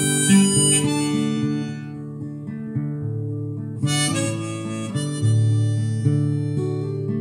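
Harmonica played in a neck rack over acoustic guitar chords, an instrumental break in a folk song. The harmonica's bright held notes fade about two seconds in and come back briefly around four seconds, with the guitar going on underneath.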